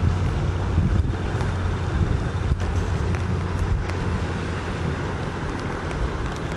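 Steady low engine drone of a motor boat under way, mixed with wind buffeting the microphone.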